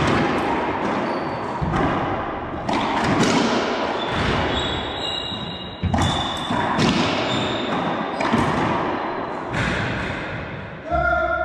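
Racquetball rally in an enclosed court: sharp echoing smacks of the ball off racquets and walls, about one a second, with short squeaks of court shoes on the hardwood floor.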